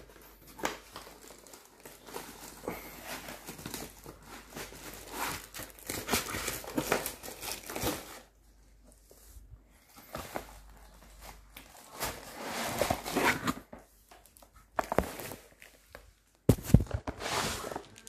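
Cardboard box and packaging being handled while a bathroom scale is unpacked: irregular rustling, scraping and crinkling with short pauses, loudest near the end.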